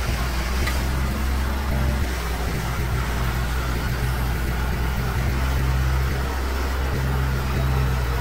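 Diesel engine of a Niigata asphalt paver running steadily with a constant low hum.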